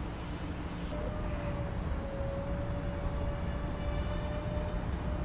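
Radio-controlled model airplane's motor and propeller droning in flight, a steady tone that comes in about a second in and holds, over a low rumble of wind on the microphone.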